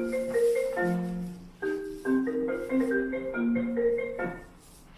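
A mobile phone's ringtone, a marimba-like melody of quick separate notes, playing through the Bluetooth-connected speakers; it stops about four seconds in as the call is answered.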